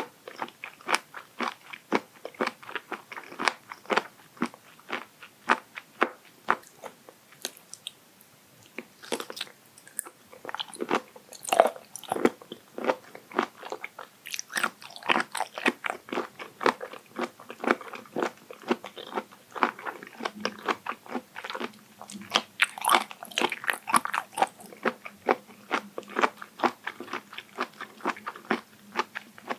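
Raw abalone sashimi being bitten and chewed: a continuous run of crisp, sharp crunches, about two or three a second.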